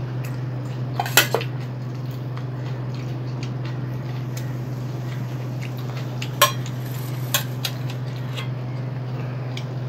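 Dishes clinking: a plate or bowls knocked and set down a few times, the sharpest clinks about a second in and just past six seconds, with lighter ticks between. A steady low hum runs underneath.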